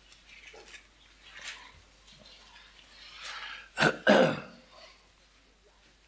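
A person gives a short double cough about four seconds in, the loudest sound here, after faint rustling of Bible pages being turned.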